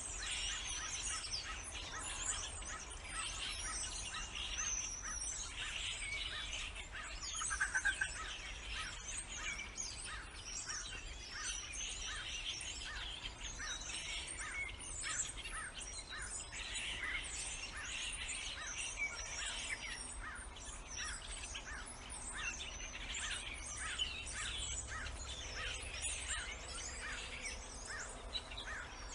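A dense chorus of many birds chirping and singing at once, with overlapping high calls and warbles, one briefly louder note about eight seconds in.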